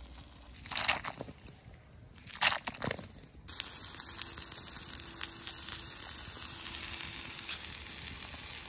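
Two brief noises in the first three seconds, then from about three and a half seconds a steady sizzle of breaded fish sticks and vegetables frying in a pan over a campfire.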